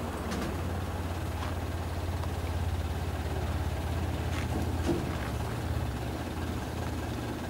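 School bus engine running steadily at idle, a low even hum.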